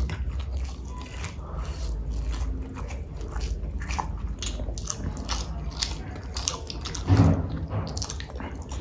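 Close-miked chewing of instant noodles: a run of wet mouth smacks and clicks, with a brief louder sound about seven seconds in.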